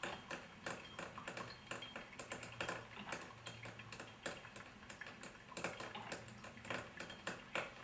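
Mr. Coffee brewer-grinder part-way through brewing: faint, irregular ticking and crackling as its heater works and coffee drips into the pot, over a faint low hum.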